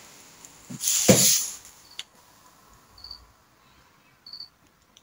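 A plastic storage box with a heavy cat in it scraping briefly across a parquet floor about a second in. Then near quiet, with two short high chirps a little over a second apart.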